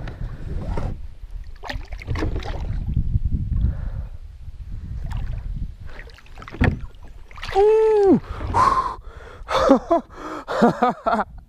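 Splashing and knocking in and around a kayak while a big largemouth bass is brought in. About eight seconds in comes one long rising-and-falling exclamation from the angler, and there are short excited vocal sounds near the end.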